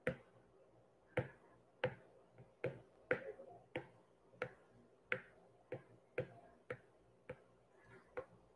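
Apple Pencil tip tapping on an iPad screen, about a dozen light, sharp taps at a steady pace, roughly one every half to two-thirds of a second, as a brush is stamped in one dab at a time.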